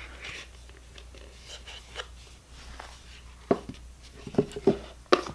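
Cardboard card-deck box and paperback guidebook being handled and set down on a cloth-covered table: light rustling with a few soft taps and knocks, most of them in the second half.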